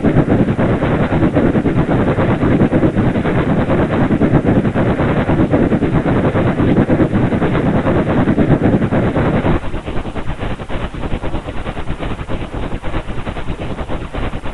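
Steam train sound effect: a loud, rapid rattling clatter of a locomotive on the move, dropping abruptly to a quieter clatter about ten seconds in.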